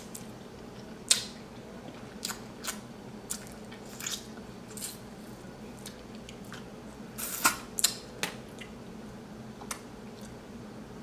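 Crab legs being eaten: scattered sharp clicks and cracks of shell being broken, with chewing, over a low steady hum. The loudest cracks come about a second in and in a quick cluster around seven to eight seconds in.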